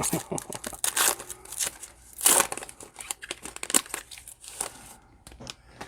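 Plastic trading-card pack wrapper crinkling and rustling in irregular bursts as a pack is opened and the cards are handled, with the loudest crinkle a little past two seconds in.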